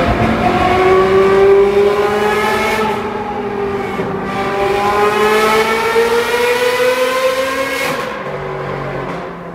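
Ferrari 430 Scuderia's V8 with headers and a loud aftermarket exhaust, accelerating hard: the engine note climbs through the revs, drops sharply at a gear change about three seconds in, climbs again in a long pull, then falls back to a lower, quieter note near the end as the driver lets off.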